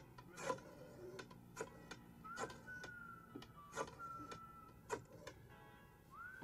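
Clocks ticking, quiet sharp ticks one or two a second at uneven spacing from several clocks. A thin, high whistle-like tone slides up and holds for about two seconds midway, then starts again near the end.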